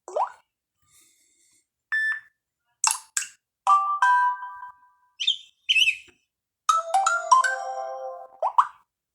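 A Samsung Galaxy Fame phone playing short preset tones one after another through its speaker: a string of brief electronic chimes, most about a second long with silent gaps between, and a quick rising blip at the start and again near the end.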